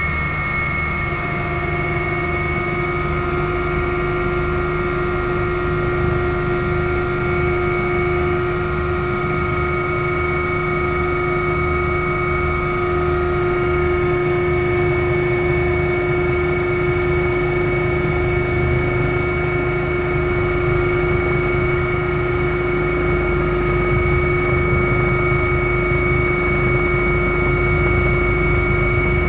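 Helicopter engines and rotor running steadily on the approach to land, heard inside the cabin: a constant drone with several high, steady whining tones over a low, rhythmic throb.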